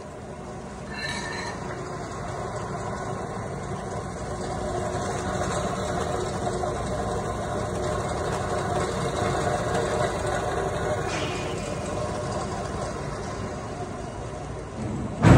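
Steady low mechanical rumble of machinery in a large factory shed, growing a little louder after the first second. A sudden loud bang comes right at the end.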